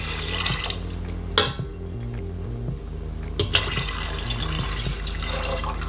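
Water poured into the Instant Pot's inner pot of mung beans and passata, first tomato-tinged rinse water from a bottle, then plain water from a plastic measuring jug, splashing steadily onto the liquid. Two sharp clinks come at about a second and a half and three and a half seconds in.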